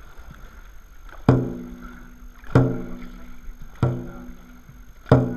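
Dragon boat drum beaten in a steady slow rhythm, four strikes about one and a quarter seconds apart, each ringing briefly with a deep tone. The beat sets the paddlers' stroke.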